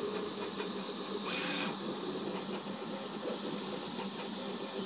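Monoprice Select V2 3D printer running a print: its stepper motors buzz and whine in a quick, uneven pattern as the print head moves, over the steady sound of its fans. A short hiss comes about a second in.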